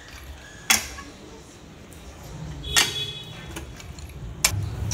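Three sharp metallic clinks about two seconds apart as a pipe wrench grips and turns the steel drill pipe of a hand-operated soil-test boring rig, over a low rumble that grows louder near the end.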